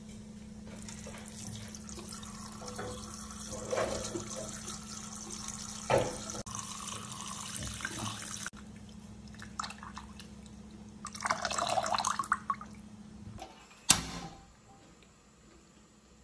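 Tap water running into a metal pot of raw beef chunks being rinsed, with splashing and the odd knock of the meat and pot. A sharp click comes near the end, then it goes quiet.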